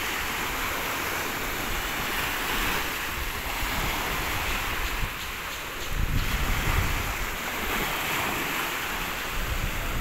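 Small waves breaking and washing over a shallow, rocky shore in a steady rush. Wind gusts across the microphone about six seconds in, adding a low rumble.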